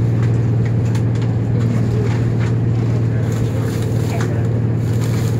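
Steady low drone of a moving train heard inside a passenger coach, with faint clicks and rattles over it.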